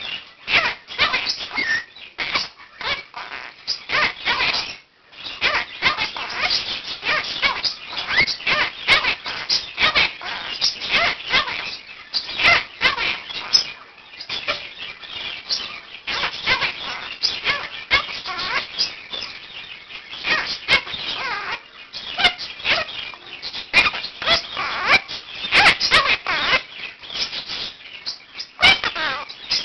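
Quaker (monk) parakeet and other pet birds chattering, squawking and chirping in a dense, nonstop run of short calls, with a brief pause about five seconds in.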